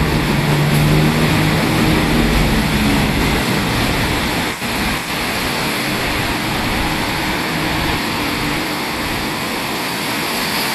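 Steady city street traffic noise, a continuous hiss of passing vehicles, with a vehicle engine hum in the first few seconds.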